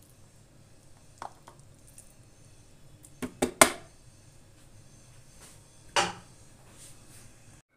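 Utensil clatter against a plastic food processor bowl as cooked chicken and chana dal are scooped in: a single knock about a second in, three quick knocks around three and a half seconds in (the loudest), and one more at about six seconds.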